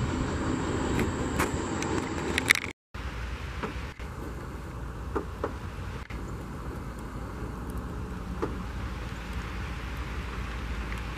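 Steady low rumble of vehicle noise, broken by a brief silent gap about three seconds in.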